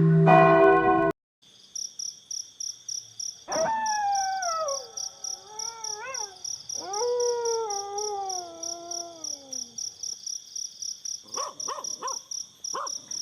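A church bell's ringing is cut off about a second in. Crickets then chirp steadily, about four pulses a second. A wolf howls in long calls that slide downward in pitch, the longest fading out near ten seconds, followed by a few short yips near the end.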